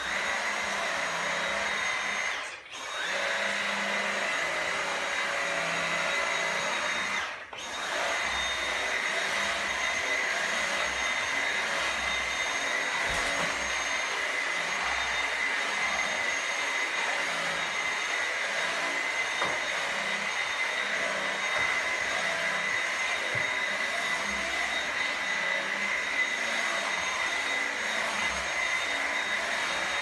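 Dyson cordless stick vacuum running with a steady high whine and hiss as its head is worked over pool table cloth. The motor cuts out briefly twice, about two and a half seconds in and again about seven and a half seconds in.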